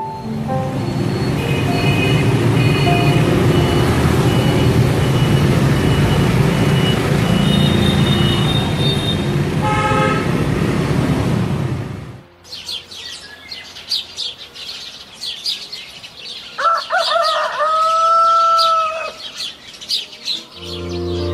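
Busy road traffic, with engines, motorbikes and short horn toots, for about twelve seconds; it cuts off suddenly into birds chirping. Near the end a rooster crows once.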